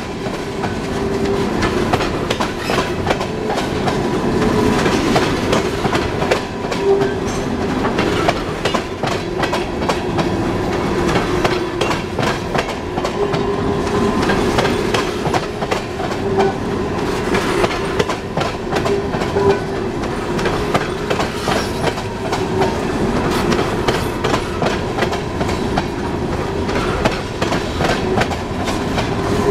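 Empty steel coal hopper cars of a freight train rolling past on a tight 13-degree curve: a steady, dense clatter of wheels over the rail joints, with a steady high wheel squeal from the flanges grinding through the curve.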